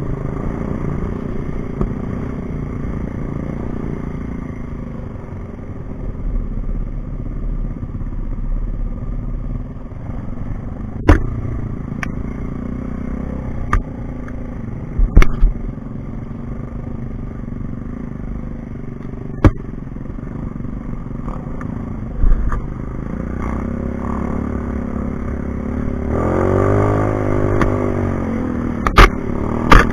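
Dirt bike engine running steadily on a trail, with a string of sharp knocks and clatters as it goes; near the end the engine revs up and back down.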